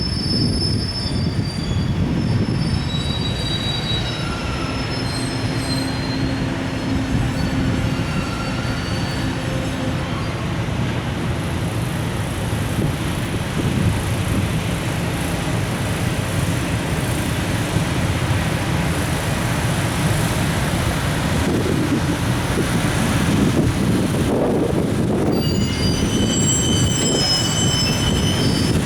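Container freight train rolling past as it pulls away: a steady rumble of wagon wheels on the rails, with thin high wheel squeals near the start and again near the end.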